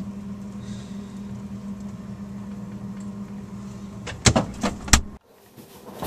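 Refrigerator running with a steady low hum, heard from inside the fridge, with a few sharp knocks and clatters about four seconds in. The hum then cuts off suddenly.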